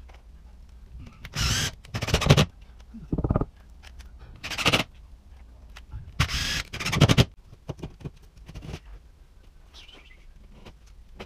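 Cordless drill driving drywall screws up into a ceiling patch in about five or six short bursts over the first seven seconds, each a second or less long, with a rapid clicking whir.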